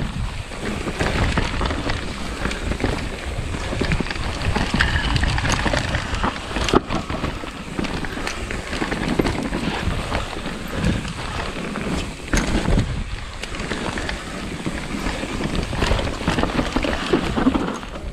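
Mountain bike ridden fast down a dirt forest trail: tyres running over the dirt and wind buffeting the microphone, with a few sharp knocks from bumps, the clearest about seven and twelve seconds in.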